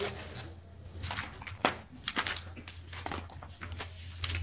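Paper rustling as pages of a case file are leafed through: irregular short flicks and rustles, one sharper flick about one and a half seconds in, over a low steady hum.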